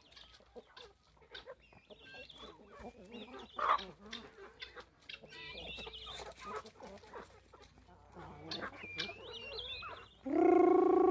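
Chickens clucking softly while pecking feed, with a few high chirping calls mixed in. About a second before the end a much louder, steady drawn-out call starts.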